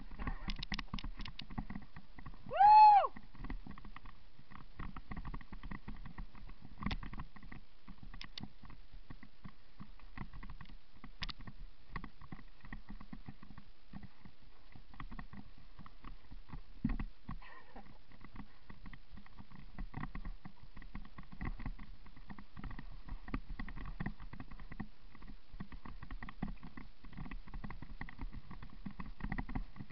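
Mountain bike clattering down a rough dirt trail: tyres over roots and loose ground with a constant rattle of chain and frame. About three seconds in there is a brief loud squeal whose pitch rises and then falls, and a heavier knock comes about 17 seconds in.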